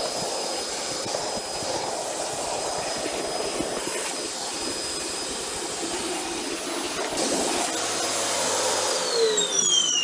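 Vacuum cleaner running steadily, its hose nozzle sucking dust and spider webs out of a radio cabinet. Near the end it is switched off and the motor's whine falls in pitch as it spins down.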